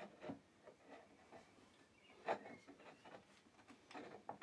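Near silence, with a few faint wooden taps and clicks as chair stretcher rails and dowels are handled and fitted by hand; the clearest tap comes a little past halfway, and a few more come near the end.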